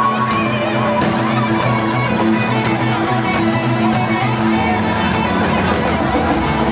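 Live fusion band playing an instrumental passage: saxophone, electric guitar, keyboard and drum kit together, with a steady beat.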